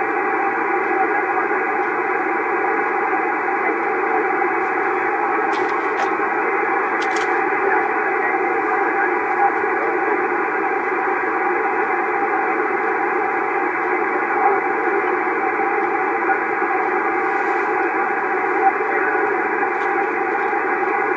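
Homebuilt vacuum-tube 40-meter shortwave receiver's audio output, running on only 12 volts plate and filament: steady, narrow static with faint amateur-band voices under it.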